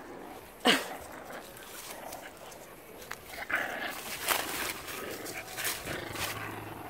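Puppies playing rough. One short yelp drops sharply in pitch about a second in, then come quieter scuffling and rustling noises from the tussle.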